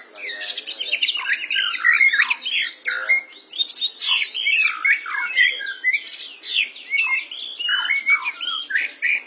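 Caged white-rumped shamas (murai batu) singing in a loud, unbroken stream of quick, varied whistled phrases and chirps.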